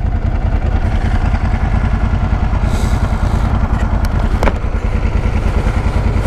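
Ducati sportbike's L-twin engine idling at a standstill, a steady low pulsing throb. A single sharp click about four and a half seconds in.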